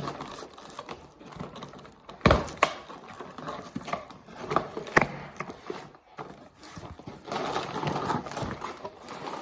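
Hands handling and opening a package: irregular rustling and tapping, with a few sharp knocks about two and five seconds in and busier rustling near the end.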